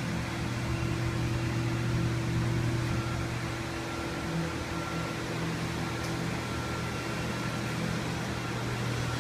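Steady hum of a running fan-driven machine: a low drone with a faint higher tone that comes and goes.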